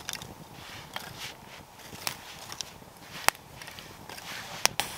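Small kindling campfire crackling, with a few sharp pops in the second half.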